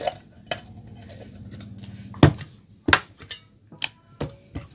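Clicks and knocks of a metal glue tin being handled and its lid put back on, the loudest knock about two seconds in; several of the later ones ring briefly.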